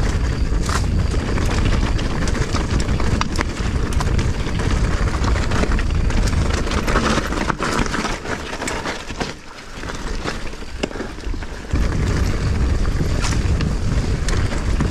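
Mountain bike descending a dirt trail: a steady low rumble of wind buffeting the camera microphone and tyres running over the dirt, with many sharp clicks and rattles from the bike. The rumble eases for a moment about nine to ten seconds in, then comes back.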